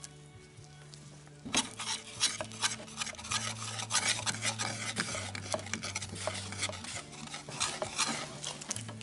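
A metal tool stirring and scraping two-part aerospace sealant on a metal sheet, mixing the two components, in quick clattering strokes that start about a second and a half in. Background music with held low notes plays underneath.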